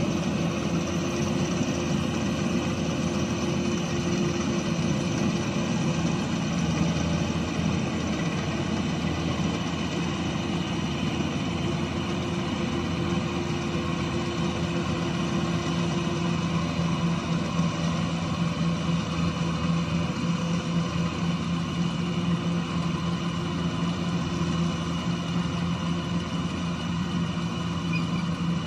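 Kubota combine harvester's diesel engine running at a steady pitch, with the hum of the machine's working parts over it. The pitch holds, and the low tone grows somewhat stronger about halfway through.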